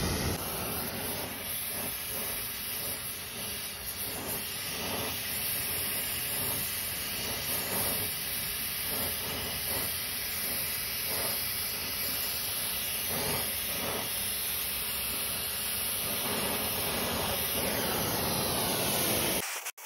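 Acetylene brazing torch flame hissing steadily as it heats copper tubing to unbraze the stubs, with a few faint knocks along the way. The hiss cuts off abruptly near the end.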